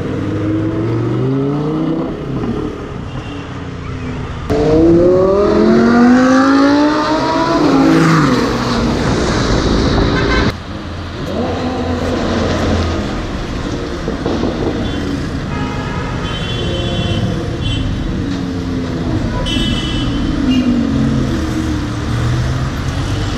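Lamborghini Huracán's V10 engine through an aftermarket Fi exhaust, revving and accelerating hard in several rising sweeps. The sound changes abruptly about four and a half seconds in, jumping louder, and again about ten seconds in; the loudest, hardest-rising pull comes between those two points.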